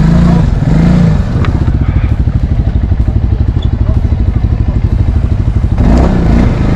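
Quad (ATV) engine blipped a few times, then idling with an even, throbbing beat, and revved again near the end.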